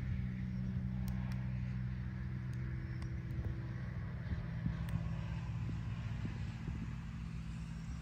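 A steady low engine hum, its pitch dipping slightly about halfway through.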